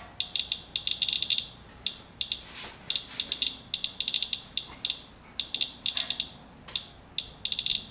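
Radalert Inspector Geiger counter chirping, one high beep per detected count, in a fast irregular stream that comes in clusters. The count rate is high over a hot spot on the rain-wetted paper towel, with the dose reading still climbing.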